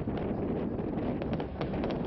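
Steady wind buffeting the microphone, with sharp pops and crackles of aerial fireworks bursting in the distance, several close together near the end.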